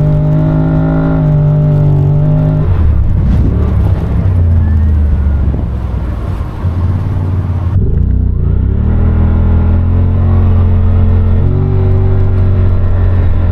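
Side-by-side UTV engine running under way. Its pitch drops about a third of the way in and climbs again a little past halfway, then holds fairly steady.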